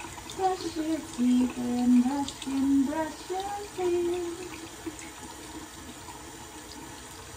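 Tap water running into a bathroom sink, a steady hiss. Over it, for the first four seconds or so, runs a tune of held, stepping notes, then stops.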